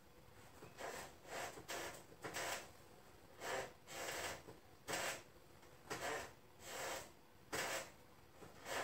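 Hands rubbing over skin and clothing in short, quiet swishes, repeated irregularly about once or twice a second: cross-fiber friction massage of the thigh's adductor muscles.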